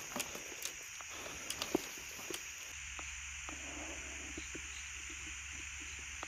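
Quiet outdoor ambience: a steady high hiss with a few short, scattered soft clicks, two of them close together about a second and a half in.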